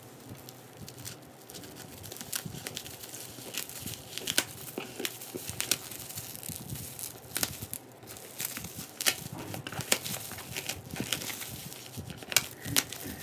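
Plastic bubble wrap crinkling as it is handled and cut open with scissors, with irregular sharp crackles and snips.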